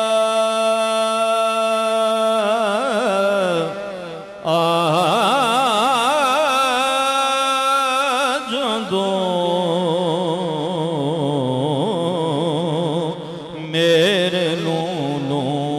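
A man singing a Punjabi naat unaccompanied, drawing out long held notes without words: first a steady note, then wavering, ornamented runs, with short pauses for breath about four seconds in and near the end.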